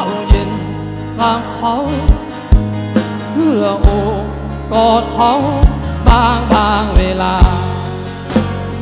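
Rock band playing live: a lead melody with bends and vibrato over drum kit, bass and electric and acoustic guitars, with the drums hitting hard throughout.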